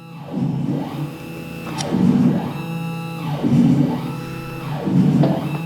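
Music with guitar, in swells that repeat about every second and a half.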